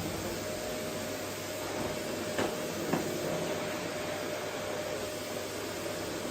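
Vacuum cleaner running steadily, a constant rushing noise with a steady motor whine, and two brief knocks about two and a half and three seconds in.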